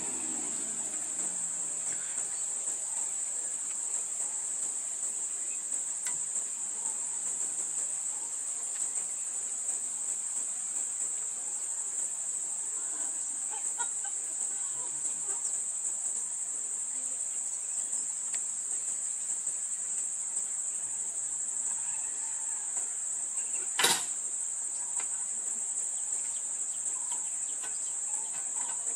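Steady, high-pitched chorus of insects shrilling in the surrounding forest, with a single sharp knock a few seconds before the end.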